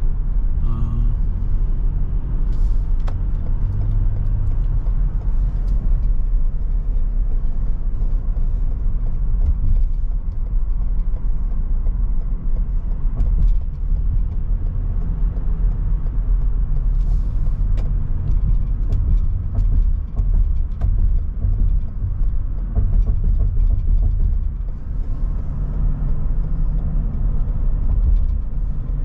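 Steady low rumble of a car driving on a highway, heard from inside the cabin: road and engine noise.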